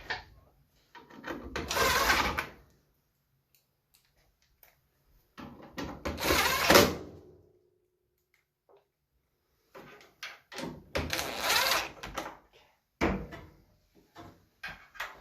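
Metal dryer cabinet parts being handled: three sliding, scraping noises of a second or two each, with scattered knocks and clicks between.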